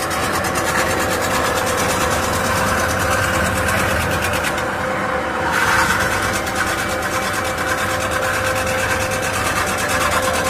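CNC metal-spinning lathe running, its spindle turning a sheet-metal pot blank against the forming roller: a steady machine hum with a held whine and a fine rapid rattle. The high hiss drops away for about a second near the middle.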